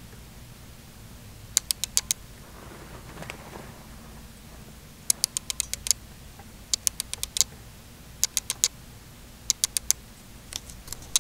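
Quick bursts of sharp plastic clicks from a LEGO tank model being handled and turned by hand, four to six clicks at a time, repeating every second or so, with a brief soft rustle about three seconds in.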